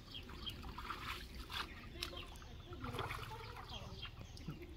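Shallow muddy pond water splashing and sloshing in irregular bursts as men wade and grope with their hands under the surface for fish.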